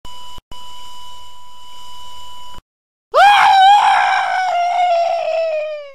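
Cartoon heart monitor flatlining: one steady electronic beep tone held for about two and a half seconds. After a short silence, a loud, long scream jumps up in pitch and then slowly sinks, fading near the end.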